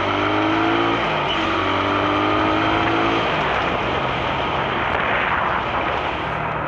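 Motorcycle engine running while riding, its pitch rising slowly as it accelerates for the first few seconds. After that, steady wind and road noise, with a low steady engine note near the end.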